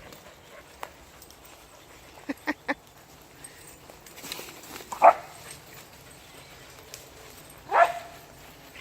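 Dogs barking in play: three quick sharp barks about two seconds in, then a louder single bark around five seconds and another near the end.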